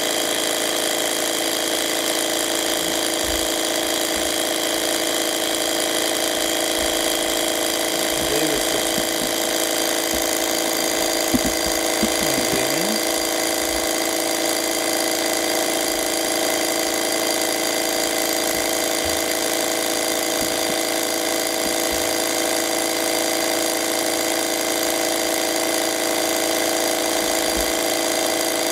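Rhombic-drive Stirling cryocooler, driven by its built-in 110-volt, 400-hertz electric motor, running steadily: a constant whine made of several steady tones. It is working as a heat pump, chilling its cold finger to frost.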